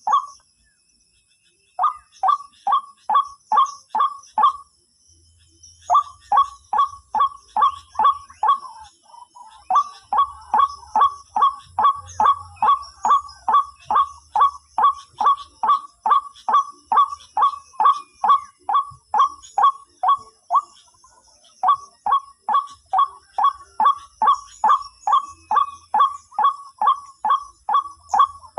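White-breasted waterhen (ruak-ruak) call: a monotonous run of short, hoarse notes, about three a second, pausing briefly twice. Steady high insect buzzing continues behind it.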